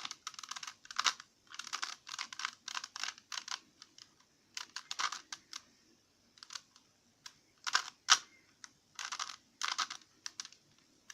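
Plastic Rubik's cube being twisted fast by hand: quick runs of clicking and rattling as the layers turn, in irregular bursts with short pauses between them.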